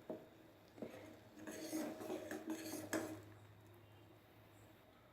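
A metal spoon knocking and scraping against a pan as boiled garlic cloves are mashed in milk. There are two light knocks, then about a second and a half of quick clinking and scraping with a faint metallic ring.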